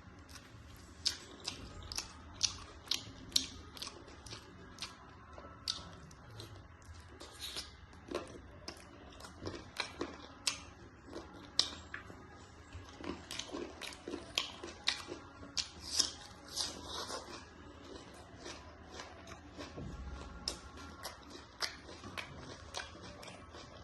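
Close-up chewing and eating mouth sounds: irregular wet smacks and clicks, several a second, as curry is eaten.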